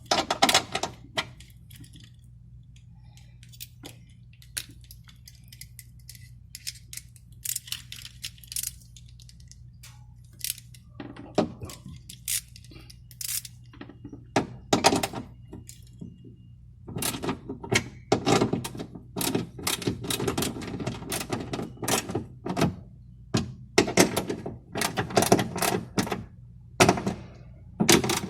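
Irregular clicks, taps and knocks of hands and tools handling door parts during a power door lock actuator replacement. The knocks are sparse at first and come thick and fast from about halfway through.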